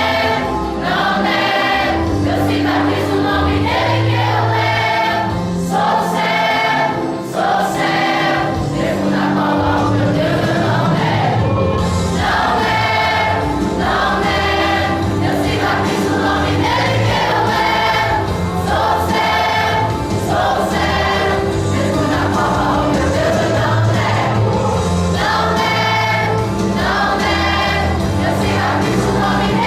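Gospel choir singing a Christian song in repeated phrases, over steady low instrumental accompaniment.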